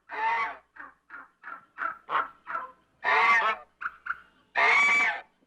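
African geese honking: three long, loud honks, about three seconds in, and about four and a half seconds in, with many short, clipped calls between them.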